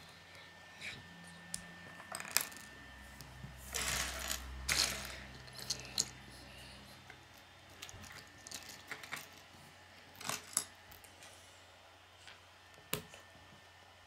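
Loose Lego Technic plastic pieces clicking and clattering against each other and a wooden tabletop as hands rummage through the pile, in scattered bursts with the busiest clatter about four to five seconds in.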